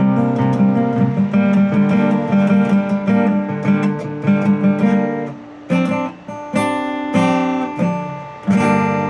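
Guitar playing: about five seconds of ringing picked notes over a bass line, then several separate strummed chords with short breaks between them.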